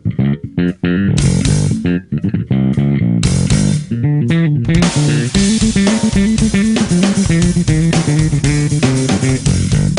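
Slapped and popped five-string electric bass (Lakland 55-02) playing a funk solo riff, with sharp percussive attacks. At first the notes are separated by short gaps; about five seconds in, the sound fills out into a dense, continuous groove with drums.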